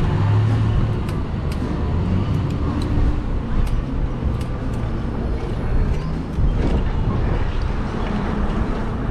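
Street traffic and road noise heard from a moving fat-tire e-bike: a steady low rumble of passing vehicles and the ride, with scattered small clicks.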